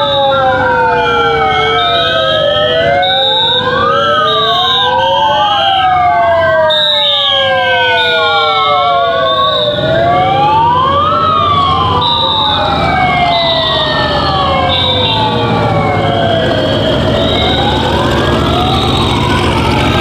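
Several wailing sirens sounding at once, each pitch rising and then falling slowly, out of step with one another, with a high tone pulsing on and off above them.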